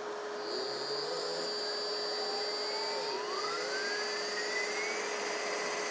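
Small AC induction motor run at 12 volts from a DIY inverter, speeding up: a quiet whine that rises steadily in pitch over about five seconds, with steady high-pitched tones above it.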